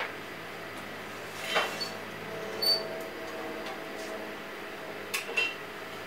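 A steel blowpipe is turned at the glory hole to reheat the glass, giving a few light metallic clinks, including one short ringing clink about a third of the way in, over the glory hole's steady hum.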